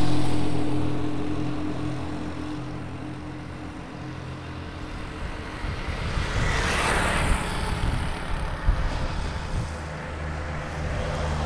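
Motorcycle engine running on the road with a steady drone, loudest at the start and fading over the first few seconds; a vehicle passes with a brief rushing swell about seven seconds in.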